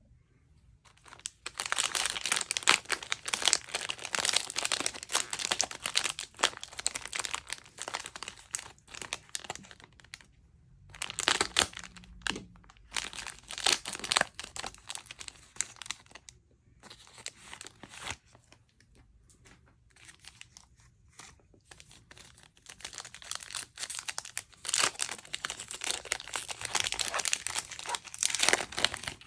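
Plastic trading card pack wrappers crinkling as they are handled and torn open, in long stretches of crackling broken by short pauses.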